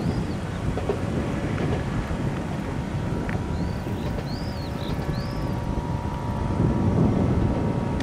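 Wind buffeting the microphone, over the faint steady drone of a distant Miki 300 diesel railcar running along the line. A bird gives a few short arched chirps about halfway through.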